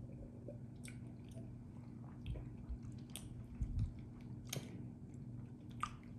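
Faint wet mouth sounds of a person tasting a sip of whiskey: several short lip smacks and tongue clicks, with a couple of soft low thumps.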